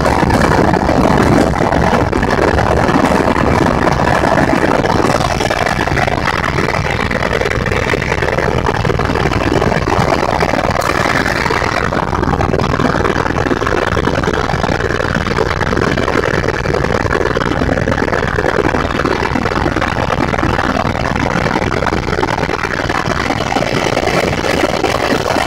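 Helicopter cabin noise in flight: the engine and rotors make a loud, steady drone, with a few thin high tones held over it.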